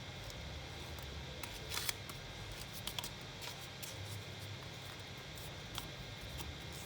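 Paper being folded and creased by hand for an origami bird: scattered crisp crackles and taps, the sharpest just under two seconds in and around three seconds in, over a steady low hum.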